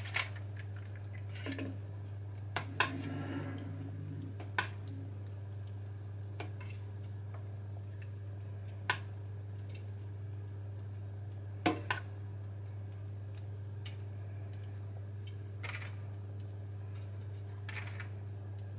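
Metal spoon clinking and scraping against a foil-lined roasting tray while basting chicken with sauce: a scattering of separate clicks one to a few seconds apart over a steady low hum.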